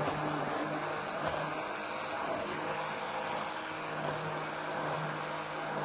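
Handheld immersion (stick) blender running steadily in a tall plastic beaker, mixing thin crepe batter of milk, egg and flour.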